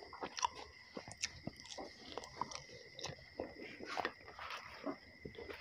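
Close-up wet chewing and mouth clicks of a man eating roti, with soft crackles as the flatbread is torn by hand. A faint, steady high-pitched tone sits underneath.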